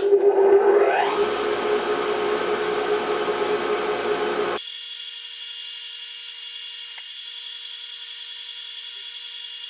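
A Grizzly 5963 surface grinder's new 3/4 HP permanent split capacitor motor starting on its 230-volt wiring: a whine rising in pitch over about a second as it spins up, then a steady running hum. About halfway through, the sound drops suddenly to a quieter, thinner hum.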